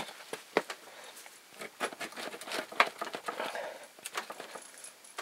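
Thin soldered sheet-tin lid of a sealed surplus ammo can being peeled back and torn: irregular crinkling, scraping and sharp metallic clicks.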